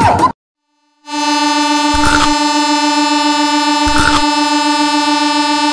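The end of an explosion effect cuts off a moment in; after a brief silence a train horn blows one long steady note, with two dull thumps about two seconds apart.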